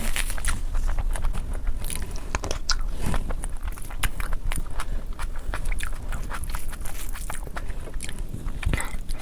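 Close-miked chewing and mouth sounds of someone eating curry and rice: a steady run of quick, wet clicks and smacks.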